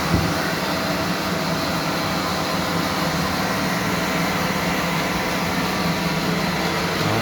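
Three-ply toilet paper rewinding machine running steadily: a constant mechanical drone with a low hum, with one short knock just after the start.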